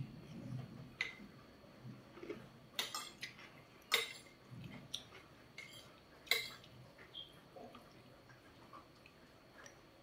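Metal fork and spoon clinking and scraping against a ceramic plate while eating, with a few sharp clinks, the loudest about three, four and six seconds in.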